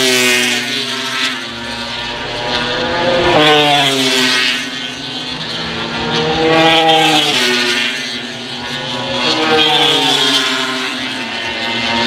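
MotoGP racing motorcycles, 1000cc four-stroke four-cylinder engines at full throttle, passing one after another. Several fly-bys, each engine note rising and then dropping in pitch as the bike goes by.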